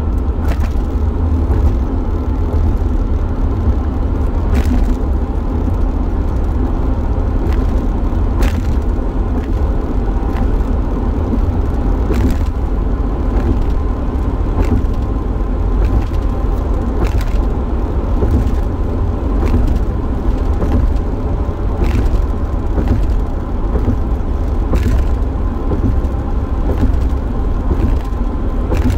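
Steady engine and road rumble inside the cabin of a moving van, with short sharp ticks or knocks every few seconds.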